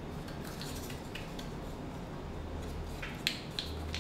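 Small clicks and taps of a hard plastic toy accessory being handled: the hinged piece is moved and lifted off a display turntable. The sharpest two clicks come about three seconds in.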